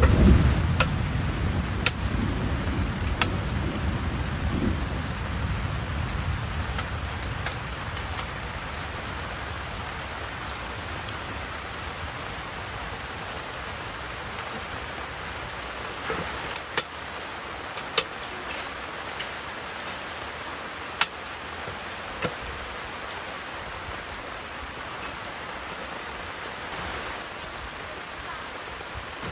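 Steady rain falling, with a roll of thunder dying away over the first few seconds. Several sharp taps of single drops come later on.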